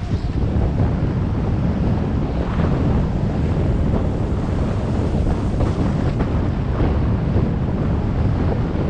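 Wind buffeting an action camera's microphone while skiing downhill at about 20 mph: a loud, steady rumble, with the skis hissing and scraping over groomed snow beneath it.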